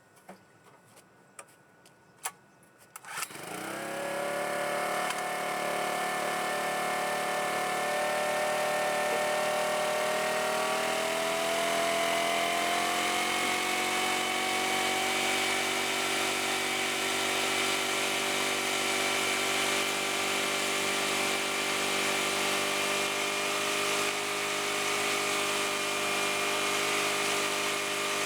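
A few faint clicks, then about three seconds in the small engine of an AIRMAN EP2300 portable generator starts and runs steadily, its pitch rising slightly for several seconds before it settles.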